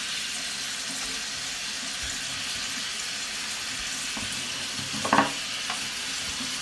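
Water running steadily from a hose-fed bath sprayer, rinsing a puppy's coat in a bathtub. A short pitched squeak about five seconds in.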